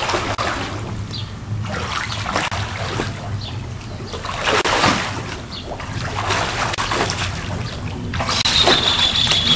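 Swimming-pool water splashing and sloshing in irregular swishes. About 8 seconds in, a high, thin steady tone starts and holds to the end.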